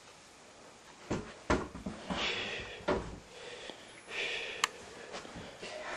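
A few dull knocks and thumps with short bursts of rustling, and one sharp click about four and a half seconds in.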